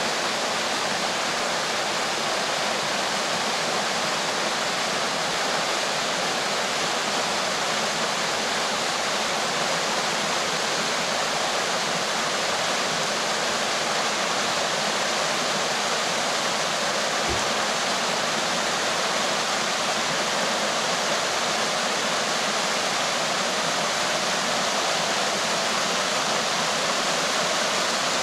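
Mountain stream rushing over mossy rocks in small cascades and waterfalls: a steady, even splashing.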